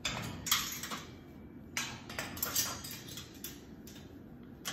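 Clicking and metallic clattering of a Moluccan cockatoo's beak and claws on its wire cage as it climbs down to the floor, in two short bursts: one at the start and one about two seconds in.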